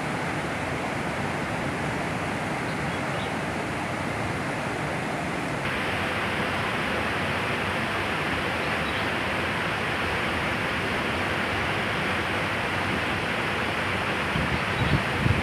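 Steady rushing of a fast-flowing river, growing a little brighter about six seconds in.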